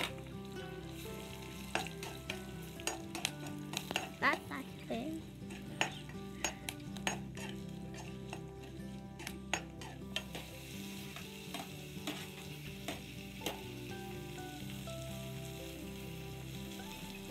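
Red chillies frying in hot coconut oil in a pan, sizzling steadily while a metal spoon stirs them with frequent sharp clicks and scrapes against the pan. The clicking thins out after about ten seconds, leaving mostly the sizzle.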